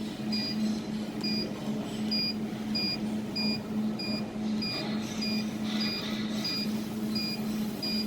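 Control-panel beeper of a desktop laser spot welder sounding short, evenly spaced beeps, about two a second, while a button is held to drive the laser support downward, over a low hum that breaks off in the same rhythm.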